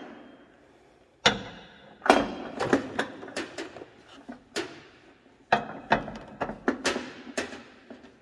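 Irregular sharp metallic clinks and knocks as a long socket wrench and extension are worked against a fitting on a truck, each hit ringing briefly.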